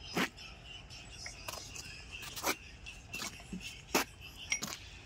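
Scattered sharp clicks and light metallic clinks, about eight in five seconds, as steel engine main bearing shells are handled. Faint high chirping runs behind them.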